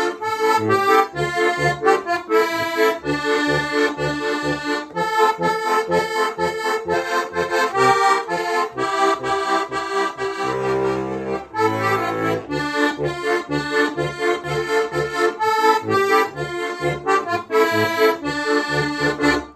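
Heligónka, a Slovak diatonic button accordion, playing a folk tune: a melody over a steady pulse of bass-and-chord notes. A low bass note is held for about a second and a half around ten seconds in. The tune ends right at the close.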